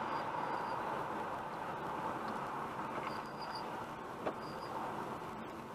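Steady road and tyre noise inside a moving car's cabin, easing slightly as the car slows, with a small click about four seconds in.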